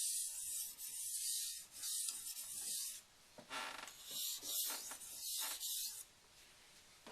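AEB-L steel knife blade stroked back and forth across a wet 1K waterstone with light pressure, each stroke a high grinding hiss. A quick run of strokes stops about six seconds in.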